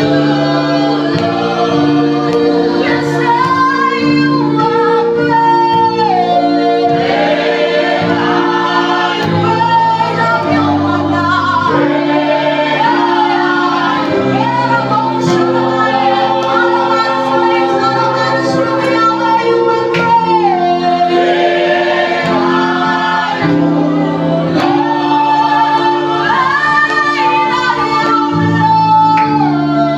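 Praise and worship team singing a gospel song, voices in choir over held instrumental chords.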